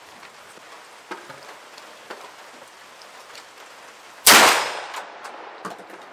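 A single 12-gauge shotgun shot from a CZ 1012 semi-automatic firing buckshot, about four seconds in, its report dying away over about half a second.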